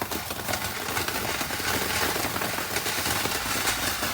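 Two crackling firework fountains burning at once: a steady spray hiss packed with rapid, fine crackles.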